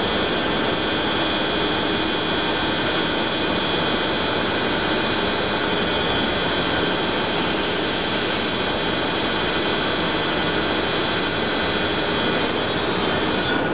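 Mazak Integrex 35 CNC lathe running under power: a steady mechanical hiss and hum with several high, even whining tones. Right at the end the highest whine drops away.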